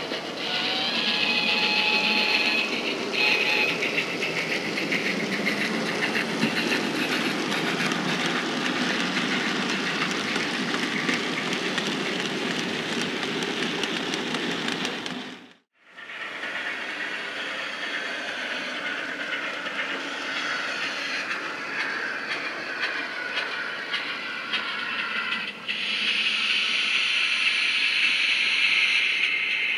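Steam locomotive sounds from the DCC sound decoder in a model GWR 14xx tank engine, chuffing and hissing through its small speaker, mixed with the running noise of model wagons on the track. The sound cuts out for a moment about halfway, and a louder hiss comes in near the end.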